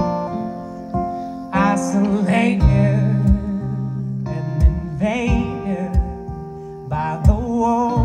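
Live band music: sung lines with vibrato over acoustic and electric guitar and sustained low notes, with a few kick-drum hits.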